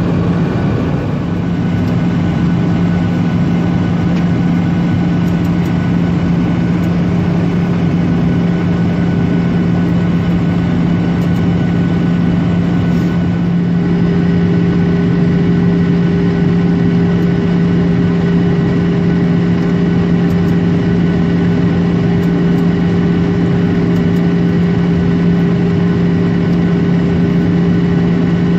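Jet airliner cabin drone in flight, heard from a window seat over the wing: turbofan engine and airflow noise as a steady low hum. A higher steady tone comes in about halfway, and the sound grows slightly louder there.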